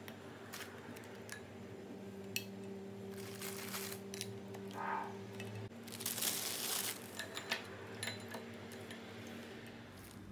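Soft taps and crinkling as coffee-soaked ladyfinger biscuits are handled and laid in a glass baking dish, with a louder stretch of rustling about six seconds in, over a steady low hum.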